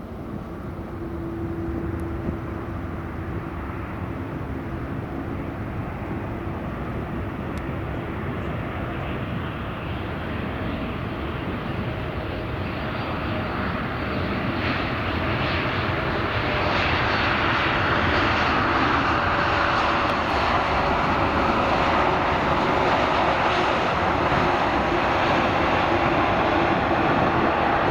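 Jet airliner's engines growing steadily louder over about fifteen seconds, then holding at a loud, rushing roar, with a steady low hum underneath.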